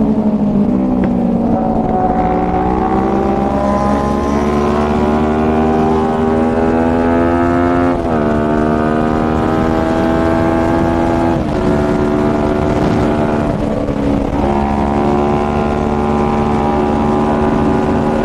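Motorcycle engine accelerating hard through the gears, heard from the rider's seat. Its pitch climbs steadily and drops sharply at each upshift, most clearly about eight and eleven seconds in, with more dips near fourteen seconds.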